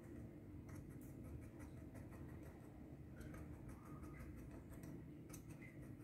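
Faint, irregular light ticks of a metal fork's tines pricking thin rolled maida dough against a marble counter: docking the pakwan so it won't puff up in frying.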